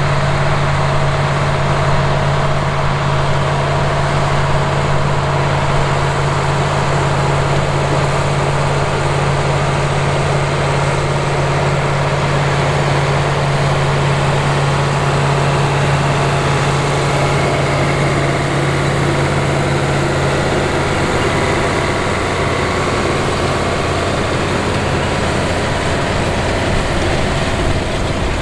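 Massey Ferguson 4900's 375 hp Cummins VT-903 V8 diesel working hard under load while pulling a field cultivator, a steady heavy drone that thins out about two-thirds of the way through as the tractor moves away.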